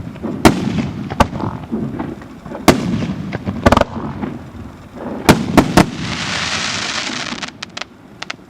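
Firework battery (JFC "Gambit" cake) firing a series of sharp bangs about a second apart, each followed by a rumbling echo. About six seconds in comes a dense crackling hiss, which ends in a few small pops and fades out.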